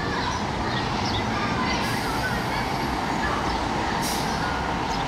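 Steady city street traffic and engine rumble, with a vehicle passing close by near the start and two brief high hisses at about two and four seconds in.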